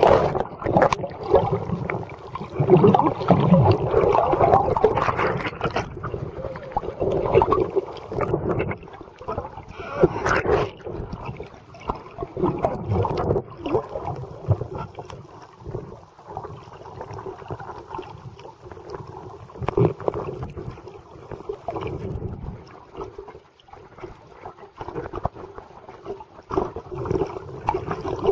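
Muffled water sloshing and gurgling as heard by a camera held underwater. It is loudest and most turbulent in the first few seconds as the camera goes under, then settles into quieter, uneven swishing.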